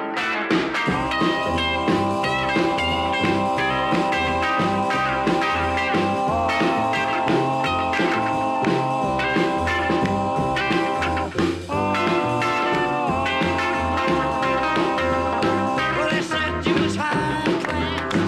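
Instrumental background music: long held chords over a walking bass line, with a brief break about two thirds of the way through.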